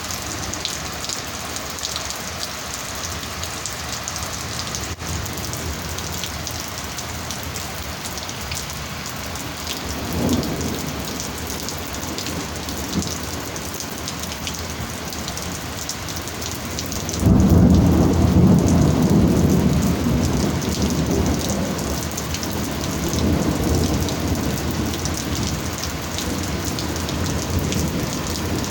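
Steady heavy rain falling, with a faint rumble of thunder about a third of the way in. A loud thunderclap breaks out about two-thirds of the way through and rolls on, rumbling, for several seconds.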